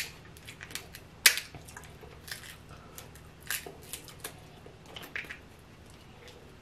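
Snow crab legs being cracked and eaten: a scatter of sharp shell cracks and clicks, the loudest a little over a second in.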